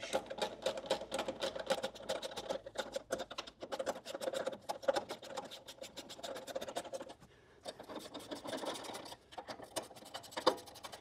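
Ratchet wrench clicking rapidly and steadily as the door hinge bolts are run in, with a short break about seven and a half seconds in before more clicking.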